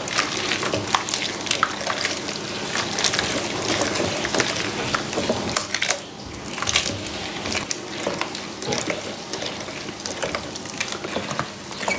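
Wet, squishing sounds of a gloved hand stirring a thick kimchi seasoning paste of red pepper powder and glutinous rice paste in a stainless steel bowl, with a ground onion, ginger and fruit purée poured in partway through.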